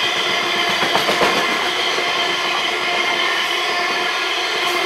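Freight train of hopper wagons rolling past: a steady rumble and rattle of steel wheels on the rails, with a high ringing tone running through it. A few sharp clacks come about a second in.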